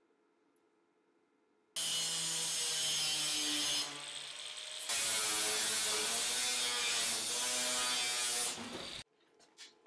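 Angle grinder with a thin cutoff wheel slicing through sheet steel, starting suddenly about two seconds in. It is briefly quieter in the middle, then runs on at full load and stops abruptly near the end.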